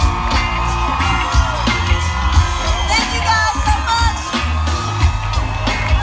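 Live R&B-pop music played loud through a concert PA, with a heavy bass beat and a wavering sung vocal line.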